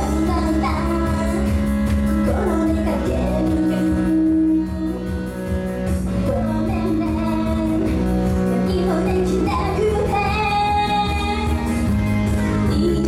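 A young female singer singing live into a handheld microphone over loud pop music with a steady beat.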